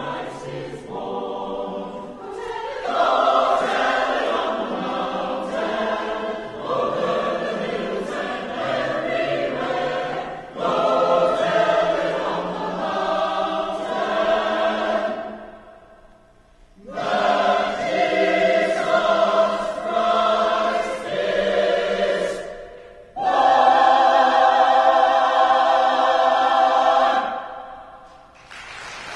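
Choir singing in a live concert performance, in several phrases with short breaks between them. It closes on a long, loud held final chord that then fades away.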